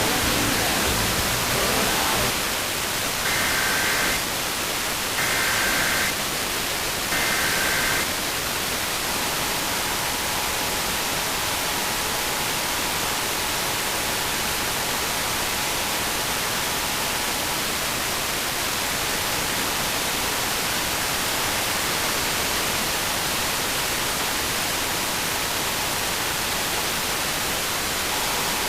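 Steady radio static hiss carrying an Emergency Alert System test. About three seconds in come three short bursts of EAS data tones (the SAME header), each about a second long and a second apart. From about nine seconds in, the two-tone EAS attention signal sounds faintly under the static.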